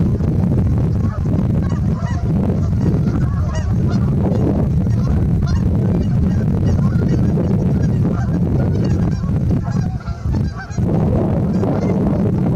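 White goose cackling and honking in rapid, repeated short calls, over a steady low rumble.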